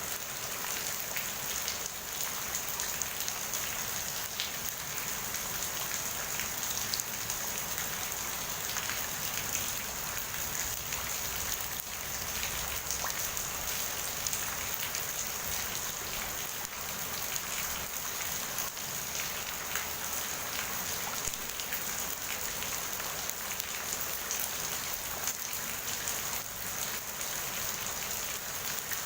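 Steady rain falling and pattering on surfaces: a continuous hiss with many small drop ticks.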